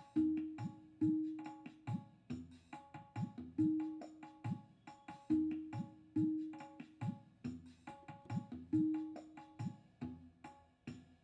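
Background music built on a hand-drum rhythm: repeated pitched drum strokes, some deep ones sliding down in pitch, mixed with sharper high strokes.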